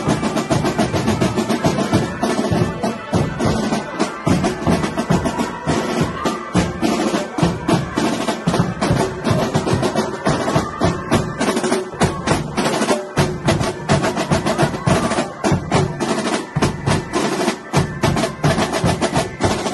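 Marching band drums playing a fast, continuous beat with rolls, snare and bass drums struck many times a second, over some sustained pitched tones.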